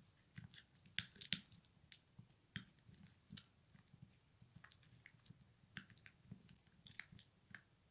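Faint, irregular squelches and clicks of a plastic spoon stirring thick, wet henna paste in a glass bowl, a few a little louder about a second in.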